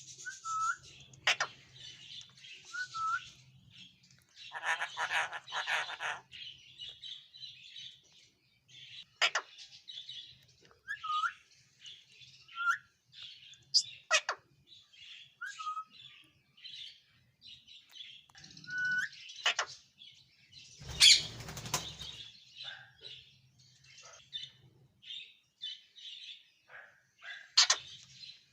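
Caged pet birds chirping and twittering without pause, with short hooked whistles and a few sharp clicks. A louder, harsher call comes about five seconds in and another near twenty-one seconds.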